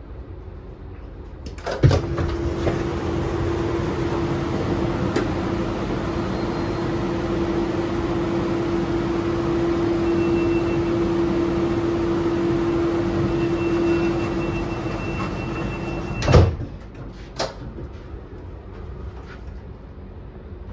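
Sliding doors of a Siemens Desiro RABe 514 commuter train: a sharp knock as they open, then a loud steady hum with one held tone for about fourteen seconds. The doors shut with a heavy thump, followed by a smaller knock about a second later.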